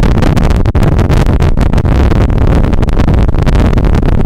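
Hurricane wind buffeting the microphone in a loud, uneven rumbling roar, over the noise of heavy breaking surf.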